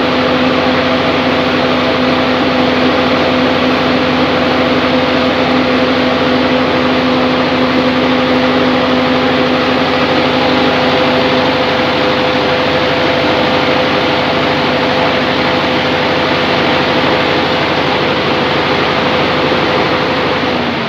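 Sawmill band saw machine running loudly and steadily. A lower hum in it drops out about halfway through, and a higher hum stops near the end.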